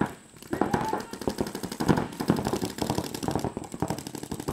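Paintball markers firing in rapid volleys, a fast stream of sharp pops, after a brief lull just after the start.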